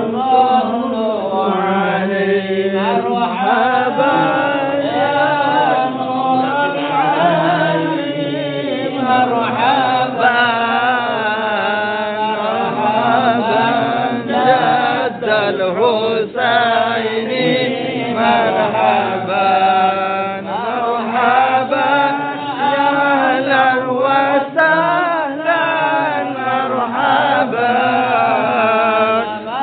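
A group of men chanting devotional salawat, blessings on the Prophet Muhammad, together in Arabic without instruments, a continuous melodic chant that rises and falls.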